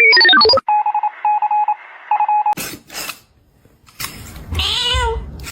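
An electronic phone-style melody ends, followed by about two seconds of pulsed electronic beeping. A few clicks come next, then near the end a cat meows once, rising and falling in pitch.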